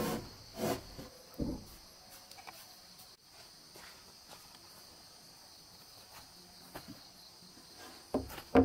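Corrugated roofing sheets knocking and scraping against a wooden awning frame as they are lifted and set in place: a few knocks near the start, then a louder clatter near the end. Insects chirr steadily in the background.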